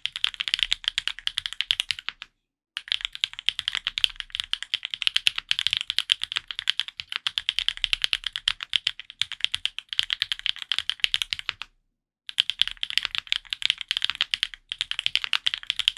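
Fast, continuous typing on an F1-8X custom mechanical keyboard with SW X Gateron Pure Sky and Pure Berry switches, a dense patter of key clacks. It breaks off completely for a moment twice, a few seconds in and about three-quarters of the way through.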